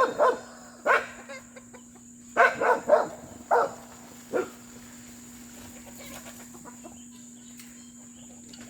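Chickens clucking, a run of short calls over the first four and a half seconds, then quiet apart from a steady low hum underneath.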